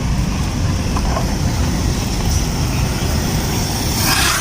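Steady low rumble of vehicle noise, with a short hiss about four seconds in.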